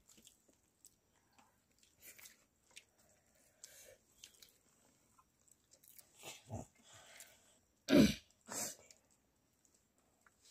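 Children eating rice by hand from steel plates: soft chewing and fingers scraping rice against the metal, with scattered faint clicks. Two short, louder sounds come about eight seconds in.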